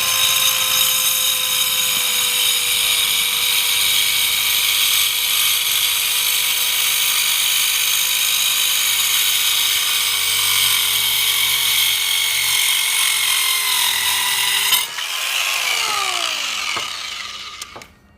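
GALAX PRO 4-amp mini circular saw with a 4-1/2 in carbide-tipped blade cutting through a wooden board: a steady high motor whine whose pitch sags slowly under load. Near the end it speeds back up as the blade comes free of the wood, then the trigger is released and the whine falls away as the blade spins down.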